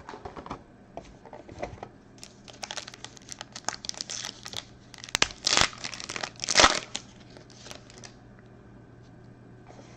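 A trading-card pack wrapper crinkling as it is handled and torn open by hand. It gives a run of scratchy crackles, with two loud sharp rips past the middle.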